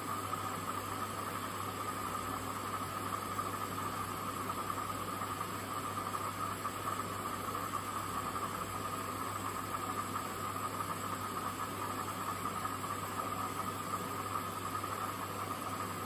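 Hoover DynamicNext washing machine filling with water for the first rinse: a steady hiss of water rushing in, over a steady low hum.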